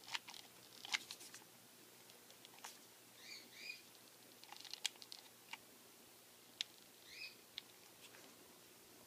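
Quiet hands-on work with a hot glue gun on a grosgrain ribbon bow: scattered light clicks and taps, with two short high chirps about three and seven seconds in.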